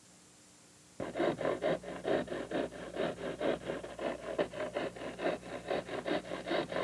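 Near silence for about a second, then a fast, even scraping rasp, about five strokes a second, that keeps going steadily.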